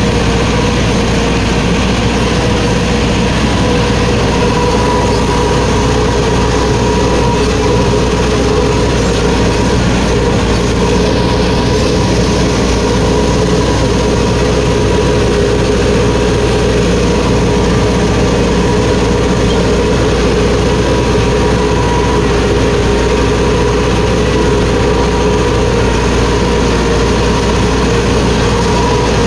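Massey Ferguson 4x4 tractor's diesel engine running steadily at an unchanging speed, heard up close from the driver's seat.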